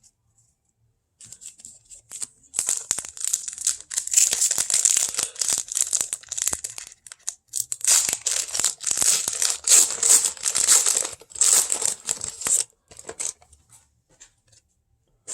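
Wrapper of a 1999-00 Topps basketball card pack being torn open and crinkled by hand: a dense run of crackling rustles lasting about eleven seconds, fading to a few scattered rustles near the end.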